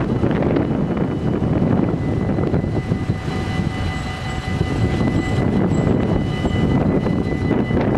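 Dutch level-crossing warning bells ringing steadily over a loud, low rumble. Further steady tones join about a third of the way in.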